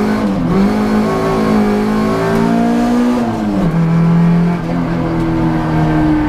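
Hyundai Getz rally car's engine heard from inside the cabin, running hard under load. The revs dip briefly near the start, fall away about halfway through, and hold at a lower note before changing again near the end.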